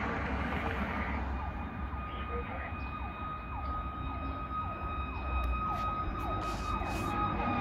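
Fire apparatus siren sounding as it approaches: a steady high whine together with a fast yelp of falling sweeps, about two a second, over a low rumble.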